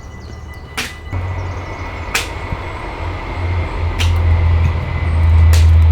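Repeated chopping blows into wood, one about every second and a half, over a low rumble that grows louder near the end.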